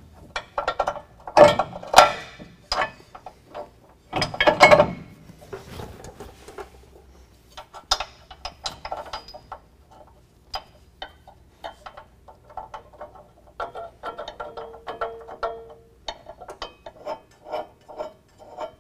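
Steel bolts, nuts and washers clinking and knocking against a steel bumper bracket as they are fed back through the frame holes by hand. There are a few louder metallic knocks in the first five seconds, then a long run of light, uneven metal ticks as the hardware is worked into place.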